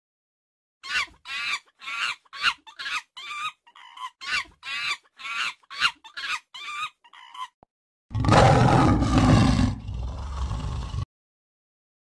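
Recorded wild-animal sound effects: about a dozen short, high-pitched calls, each rising and falling in pitch, about two a second. Then a much louder, deep roar starts about eight seconds in and lasts about three seconds.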